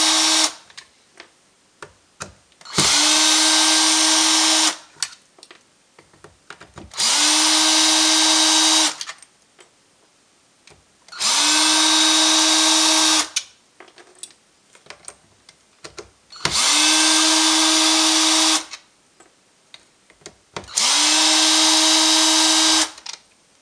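A cordless drill-driver runs in bursts of about two seconds each, five times with the tail of a sixth at the start, unscrewing the screws of a cordless drill battery pack's case. Each burst begins with a short rising whine as the motor spins up, then holds a steady pitch. Light handling clicks come between the bursts.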